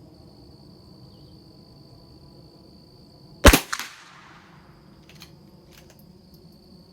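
A single .22 LR rifle shot from a Christensen Arms Ranger about halfway through, with a short echo trailing off, followed by a couple of faint clicks. A steady high insect chirring runs underneath.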